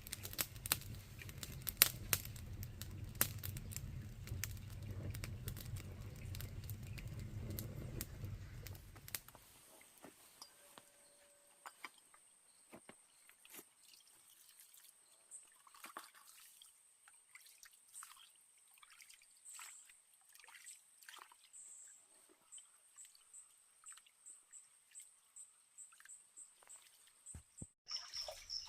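Water pouring and trickling for about the first nine seconds, then slow separate drips, about one a second, over a thin steady high whine.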